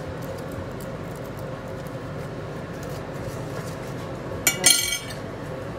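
A metal spoon scraping softly inside a foil-wrapped baked potato, then two quick ringing clinks of the spoon against a ceramic plate about four and a half seconds in.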